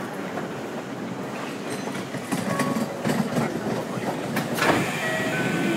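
Kintetsu 1220 series electric train pulling away from a station, heard from on board: the noise swells from about two seconds in as the GTO-VVVF inverter's whining tones start up under power, with a couple of sharp clunks near the end.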